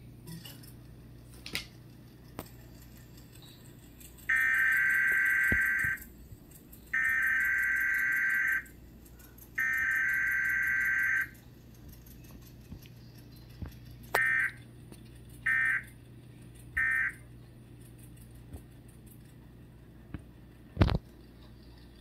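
Emergency Alert System data tones playing from a TV speaker. Three harsh, buzzy bursts of about a second and a half each, a second or so apart, carry the SAME header of a Required Weekly Test. A few seconds later come three short bursts, the end-of-message code. A sharp knock sounds near the end.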